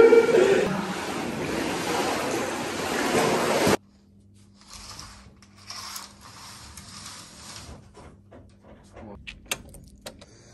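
Water splashing and churning in an indoor pool as a man climbs in, a loud rushing noise that cuts off sharply about a third of the way in. After that it is much quieter, with a few faint clicks near the end.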